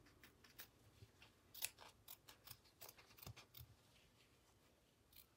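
Small scissors cutting through cloth fabric: a run of faint, quick, irregular snips that stops about four seconds in.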